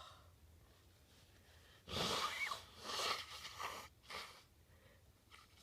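A person sneezing about two seconds in, sudden and noisy with a brief voiced cry, followed by a couple of shorter breaths.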